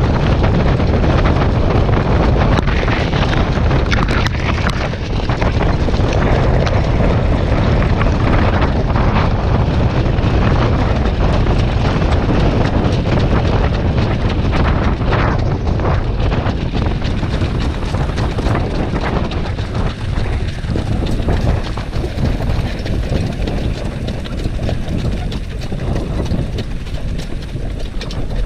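Wind rushing over the microphone of a camera riding on a harness-racing sulky at speed, over a dense low rumble from the horse's hooves and the sulky wheels on the dirt track. It eases a little in the second half as the pace drops.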